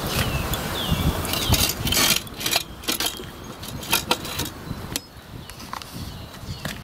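Irregular metallic clinks and rattles over a steady hiss, around a coal-fired miniature steam locomotive being steamed up. It gets quieter after about five seconds.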